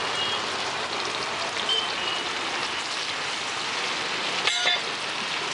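Masala-coated fish deep-frying in a wide, shallow pan of hot oil: a steady, dense sizzle and crackle as fresh pieces are lowered into the oil.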